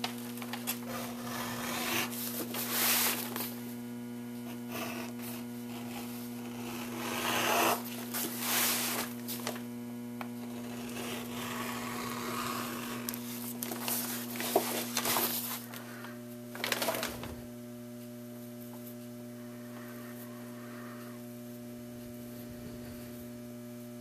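Steady electrical mains hum, with irregular rubbing and scraping as hands handle a leather rifle scabbard. The handling noise stops about seventeen seconds in, leaving only the hum.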